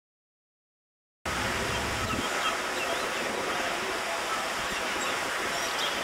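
Silence, then about a second in a steady outdoor background hiss starts abruptly, with a few faint short high sounds in it.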